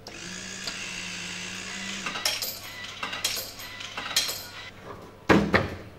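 A steady hum for about two seconds, then a run of short metallic clinks and clatters, ending in a louder knock about five seconds in.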